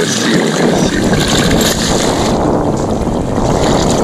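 A hooked salmon thrashing and splashing in shallow river water as it is drawn in to the gravel bank on a taut line, with wind buffeting the microphone.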